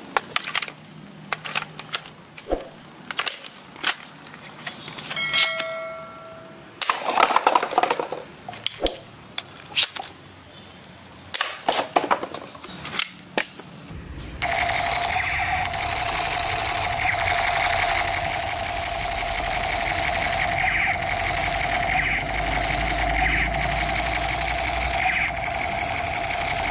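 Toy double-barrel shotgun firing soft projectiles at a stack of plastic cups: a string of sharp snapping shots and clattering cups. About fourteen seconds in, a battery-powered toy pistol's electronic shooting sound starts, a steady wavering buzz-tone that swells every second or two.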